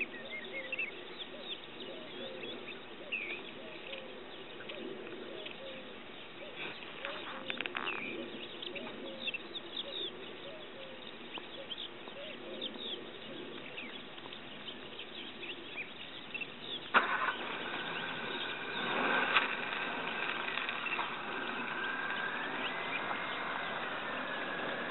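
Outdoor wetland ambience: many short high bird chirps over a busy low murmur. About two-thirds of the way through, a sharp click is followed by a steady mechanical whine that holds to the end, wavering in pitch once near the end.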